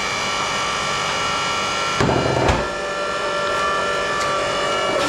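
Homemade hydraulic log splitter running: its electric motor and hydraulic pump give a steady, many-toned whine while the ram pushes a log against the wedge, with a louder, rougher surge about two seconds in. The owner notes the machine lacks power and suspects it is not running at the correct pressure.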